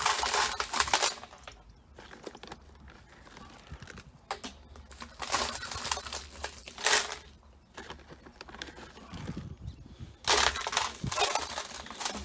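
Handfuls of coarse rock salt scattered over herring in a plastic barrel, a gritty hiss of falling crystals several times with short pauses between.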